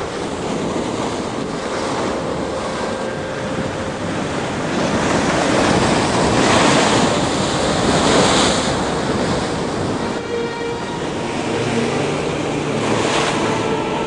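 Heavy storm surf: waves breaking and washing in a steady rush, with wind buffeting the microphone. It swells to its loudest a little past the middle.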